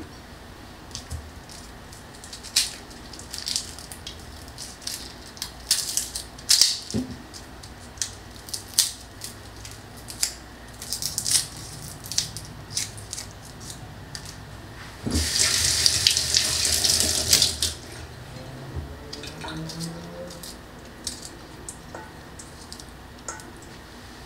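Kitchen prep noises of garlic being readied and added to a stainless-steel bowl of seasoned chicken wings: a scatter of small clicks and taps with a couple of low knocks. A water tap runs for about two and a half seconds roughly fifteen seconds in.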